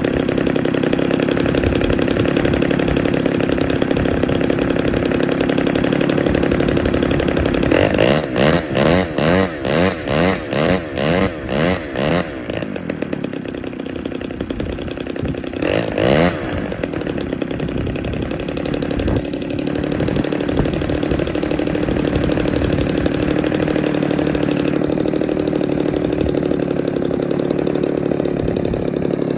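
Large radio-controlled aerobatic plane's propeller engine idling on the ground. About eight seconds in it pulses about twice a second for some four seconds, gives one short rev a few seconds later, then settles back to a steady idle.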